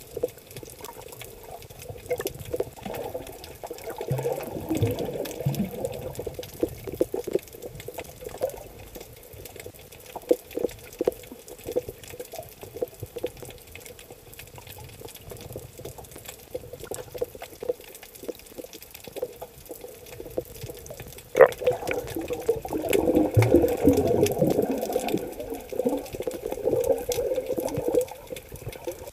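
Muffled underwater sound picked up by a submerged camera: a constant crackle of small clicks with swells of water noise. A sharp knock about 21 seconds in is followed by several seconds of louder water noise.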